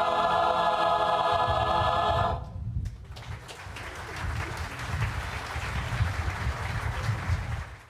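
A choir holding a final sustained chord that ends about two seconds in. Audience applause follows, swells and is cut off abruptly near the end.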